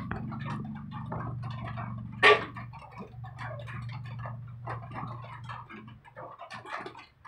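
Mouth and hand eating sounds: chewing and lip smacks with small irregular clicks as rice is picked up by hand from a plastic plate, with one louder knock about two seconds in. A steady low hum underneath stops about six seconds in.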